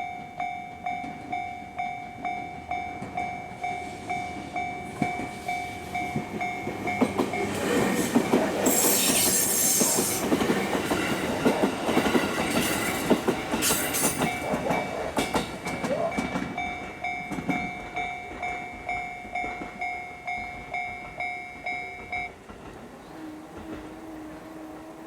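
Japanese railway level crossing alarm ringing, a repeated two-tone ding about one and a half times a second. A train passes over the crossing from about seven seconds in, its wheels clattering, loudest for several seconds. The alarm stops about 22 seconds in, after the train has cleared.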